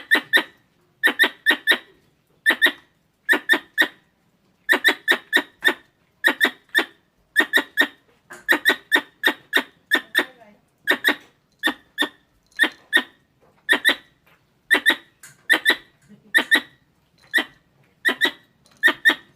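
Squirrel calls: sharp, squeaky chirps in quick clusters of one to four, repeated about once or twice a second without a break, the kind of call played to lure squirrels.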